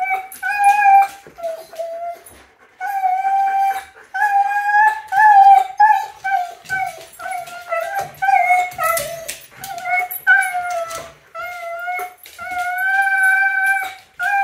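A husky whining and howling in a long run of wavering, drawn-out cries, each a second or two long with short breaks between. This is a protest at being left behind and shut behind a gate.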